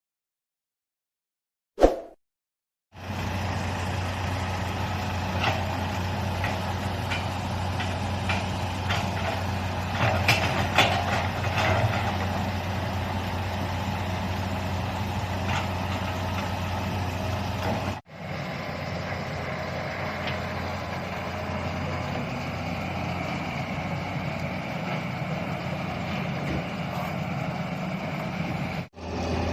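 Excavator's diesel engine running steadily, with scattered metallic clanks and knocks during the first half. It starts about three seconds in after silence and breaks off briefly twice, about halfway and near the end.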